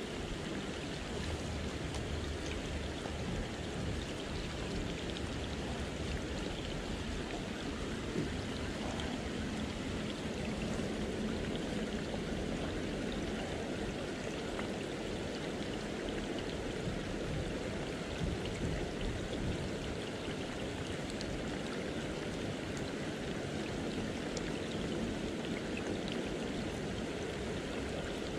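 Steady, even rushing of water, with no break or change.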